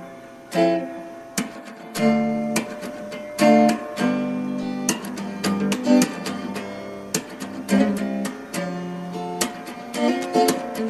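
Background music of plucked notes and chords, each note starting sharply and fading away.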